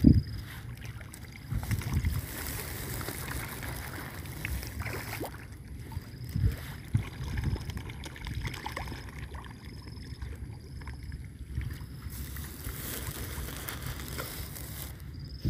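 Wind rumbling on a phone microphone outdoors, with a few dull thumps. Faint short high chirps repeat a little faster than once a second through the middle.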